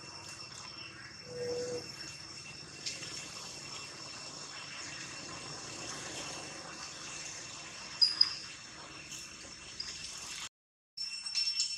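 Steady high-pitched insect chorus, like crickets, running on without a break, with a short soft low call about a second and a half in and a brief sharp chirp about 8 seconds in. The sound cuts out for about half a second near the end.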